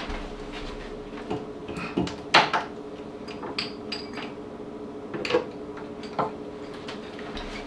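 Scattered clicks and knocks from across the kitchen as spice jars and cupboards are handled, eight or so short knocks spread irregularly over the few seconds. A steady low hum runs underneath.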